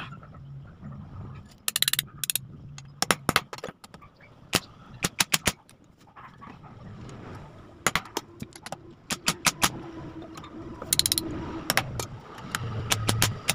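Sharp metallic clicks and clinks of bolts and hand tools against a motorcycle engine's crankcase during reassembly, coming in scattered clusters with a few short rattling runs.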